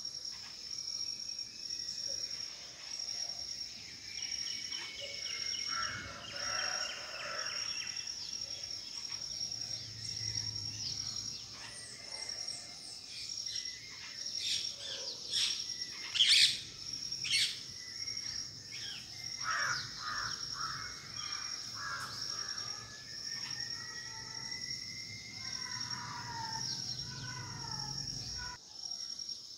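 Several birds calling, with a cluster of loud, sharp calls about halfway through and falling whistled notes near the end, over a cricket's steady, evenly pulsing chirp.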